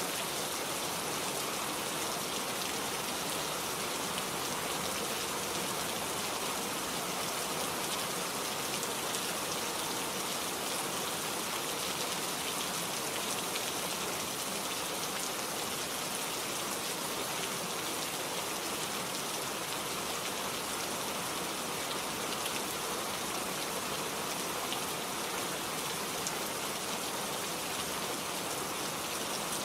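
Steady rain falling in a forest, an even hiss with many small drops pattering.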